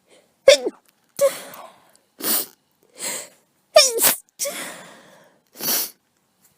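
A person with a head cold sneezing over and over in a fit: about seven short, loud bursts in quick succession, some with a voiced cry at the start.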